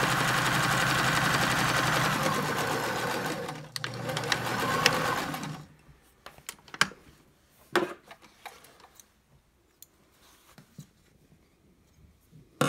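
Electric domestic sewing machine stitching a curved seam through two layers of fabric, running at a steady speed for about three and a half seconds, pausing briefly, then stitching for about two seconds more before stopping. A few faint clicks of handling follow.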